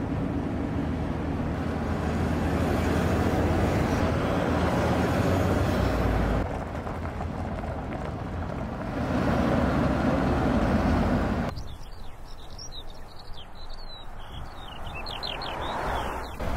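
Mercedes-Benz X350d pickup driving, its V6 diesel running steadily under a wash of tyre noise. About two thirds of the way through the sound drops, and birds chirp over a quieter engine.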